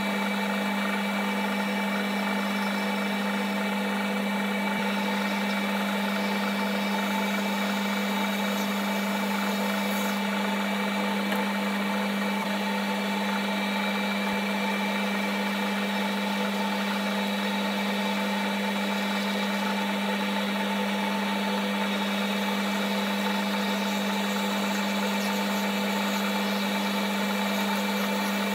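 Metal lathe running steadily with a constant hum and a strong low tone, while a boring bar cuts the inside of a nylon bush held in the four-jaw chuck.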